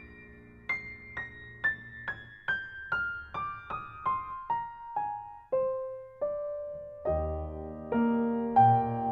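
Background music: a melody of single notes stepping down in pitch, about two a second, giving way to fuller, louder chords about seven seconds in.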